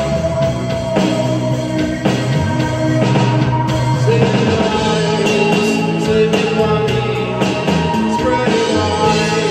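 Three-piece rock band playing live: electric guitar with sustained notes over bass guitar and a drum kit.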